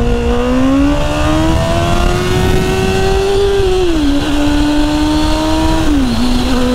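Sport motorcycle engine pulling along the road, its pitch climbing slowly, then dropping twice at upshifts, about four and about six seconds in, over steady wind and road noise.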